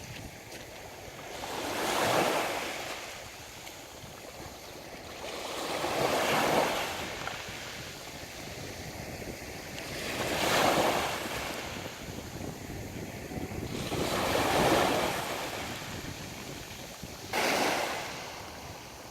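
Sea waves breaking on the shore, five in turn about four seconds apart, each swelling up and washing back out, over a steady background of surf.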